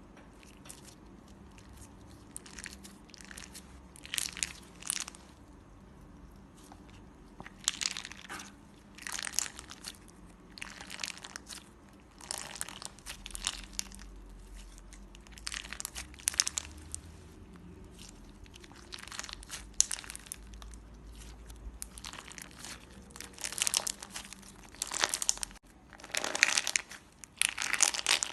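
Clear slime mixed with glitter and small balls being worked by hand, giving irregular bursts of crunchy crackling and popping that grow denser and louder near the end.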